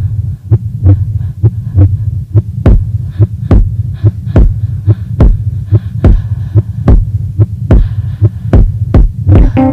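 A soundtrack of heartbeat-like throbbing over a low hum, with quick pulses about twice a second. From about three seconds in, deep thumps join a little more than once a second. Pitched musical notes come in just at the end.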